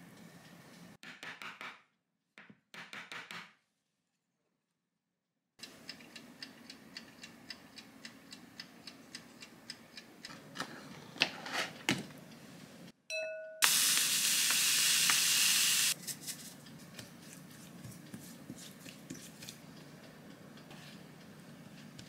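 Kitchen baking sounds in short edited pieces. Two bursts of rapid tapping are followed by soft even clicking with a few sharper knocks, then one short electronic beep like a digital kitchen scale's. Next comes a loud steady hiss for about two seconds, and finally a silicone spatula scraping and stirring flour in a glass bowl.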